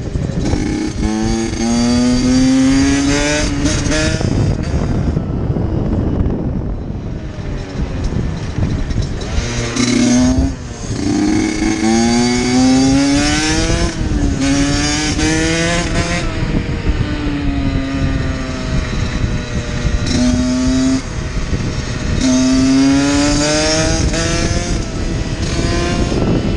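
Small two-stroke dual-sport motorcycle engine pulling up through the gears, its pitch climbing on each pull and dropping at each shift, with a lower, easing-off stretch a few seconds in. A steady low rush of wind underlies it.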